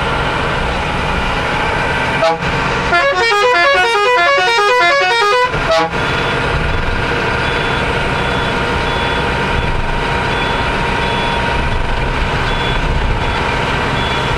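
Steady engine and road noise inside a moving bus's cabin. About two seconds in, a horn sounds a short note, then plays a quick musical tune of rapidly changing notes for about three seconds. A faint, evenly repeating high beep follows.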